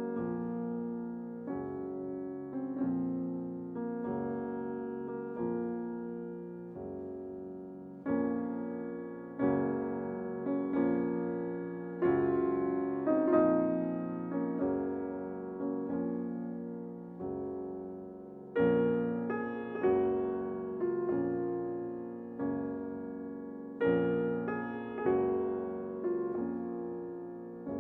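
Background piano music: gentle chords struck at a steady pace, each note fading out after it is played.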